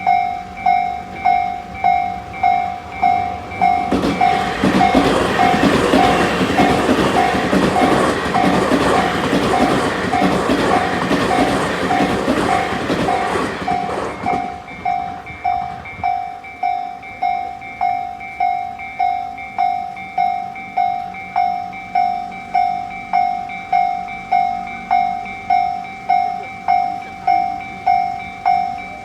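Japanese level-crossing warning bell ringing in a steady, even repeating rhythm. From about four seconds in to about fourteen seconds in, a Tobu electric train passes over the crossing with a loud rumble and wheel clatter. The bell keeps ringing after the train has gone.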